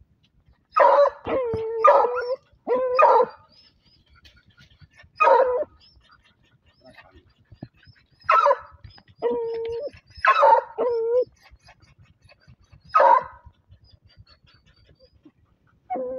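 Hunting dogs barking and yelping into a paca's burrow at the quarry holed up inside: about nine sharp barks, some drawn out into short held yelps, coming irregularly in clusters.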